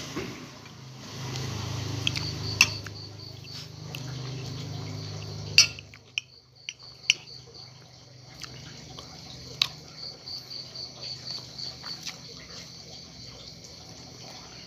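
A metal spoon clinks and scrapes several times against a ceramic plate, the loudest sounds, over crickets chirping in steady high-pitched pulse trains.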